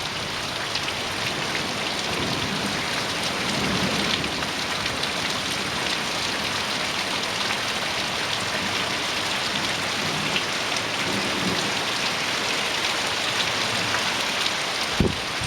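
Heavy rain pouring steadily, with low rumbles of distant thunder now and then during a night thunderstorm. A brief thump near the end.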